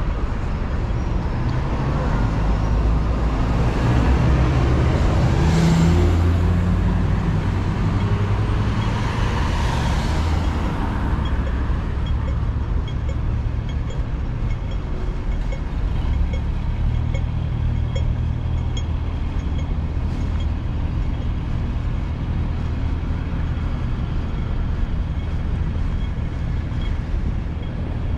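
Road traffic running steadily as a low rumble, with vehicles passing louder and hissing twice in the first third.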